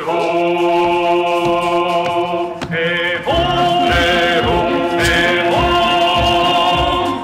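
Choral singing: several voices holding long sustained chords, breaking briefly about three seconds in and moving to a new chord.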